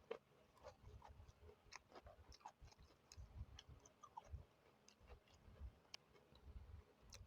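Faint mukbang eating sounds: close-up chewing with scattered small mouth and utensil clicks and soft low thumps.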